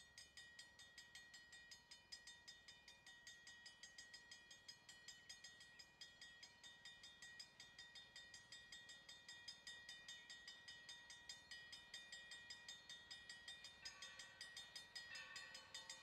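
Railroad crossing bell ringing steadily at several strikes a second, starting suddenly as the crossing signal activates for an approaching train. Near the end, the distant whistle of steam locomotive #3025 joins in with several blasts.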